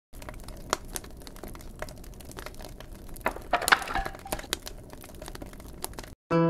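Burning wreckage crackling and popping: scattered sharp crackles over a faint low hiss. Plucked-string music comes in right at the end.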